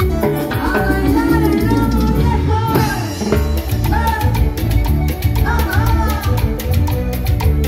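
Live Latin band music played loud over the stage sound system: keyboards over a steady drum beat.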